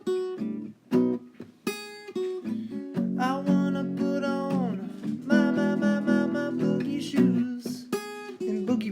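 Acoustic guitar music: plucked and strummed chords in a steady instrumental passage.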